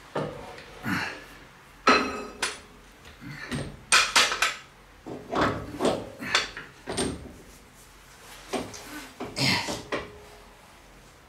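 Irregular metal clanks and knocks of a long steel steering linkage bar being handled and lifted into place under a truck's front axle. One strike about two seconds in rings briefly.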